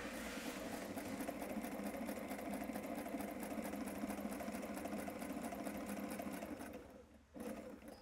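Sailrite walking-foot sewing machine running at an even, rapid pace, sewing a straight stitch through nylon webbing and hook-and-loop tape. It slows and stops about seven seconds in, then sews a brief short run just before the end.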